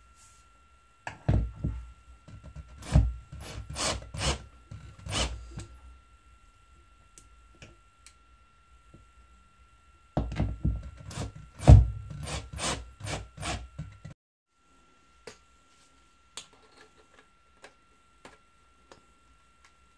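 Cordless drill-driver driving a screw into the wall in two bursts of jerky, clicking running: the first starts about a second in and lasts five seconds, the second runs from about ten to fourteen seconds.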